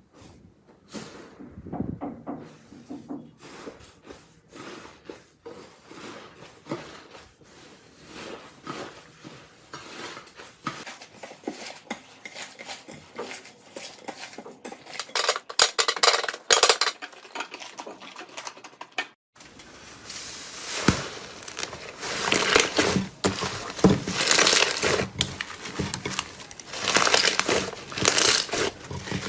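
Slime being handled close to the microphone: a run of small wet clicks and pops, then after a sudden cut about nineteen seconds in, louder, denser crackling and crunching.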